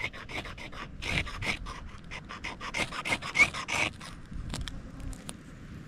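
Leatherman blade scraped quickly and repeatedly down a fire-starting flint to throw sparks onto dung tinder, about four rasping strokes a second, stopping about four seconds in.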